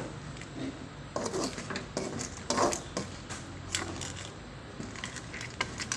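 Kitchen clatter: irregular knocks and clicks of utensils against a cooking pot, over a steady low hum.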